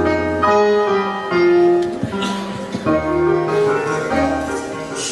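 Instrumental show music, held chords that change every second or so.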